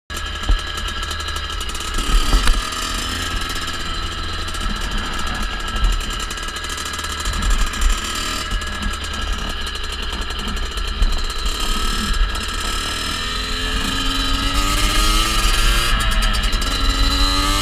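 Kawasaki KX65 dirt bike's small two-stroke single-cylinder engine running as the bike rides along, with wind rumble on the microphone. Near the end the engine note climbs, drops briefly and climbs again as it accelerates.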